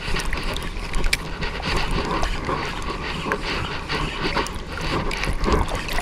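Choppy sea water lapping and splashing close by, with wind noise on the microphone.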